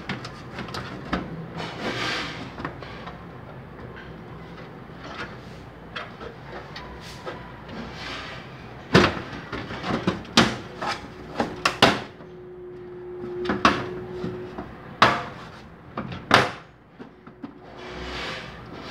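Clicks and knocks from a desktop PC case being handled, scattered throughout, with a run of loud sharp knocks in the second half.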